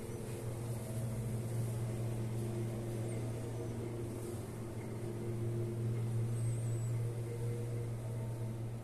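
Steady low mechanical hum, with a few faint steady tones above it.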